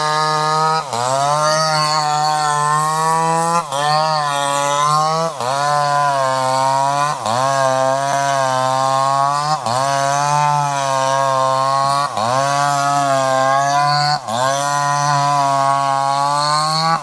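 Two-stroke chainsaw running at high revs. Every second or two its engine note dips briefly and climbs straight back.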